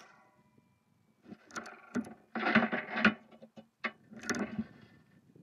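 Bolt of a Howa .223 bolt-action rifle being worked between shots: lifted and drawn back to eject the spent case, then pushed forward and locked to chamber the next round, a run of metallic clacks and scrapes over about three seconds.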